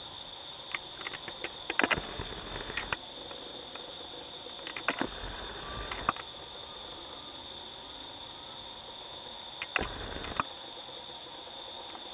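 Steady high insect drone on a single unchanging pitch, with three clusters of crackling clicks and low knocks about two, five and ten seconds in.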